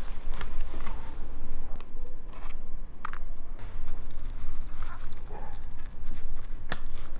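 A knife cuts through the crisp, crusty skin and meat of a whole tandoor-roasted nutria. It makes irregular crunching and crackling, with a couple of sharper cracks about three seconds in and near the end.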